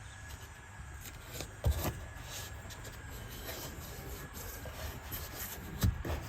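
Painter's tape being put on and rubbed down to hold a MOLLE panel against a car's body, with rustling and rubbing from handling the panel and two dull knocks, about a second and a half in and near the end.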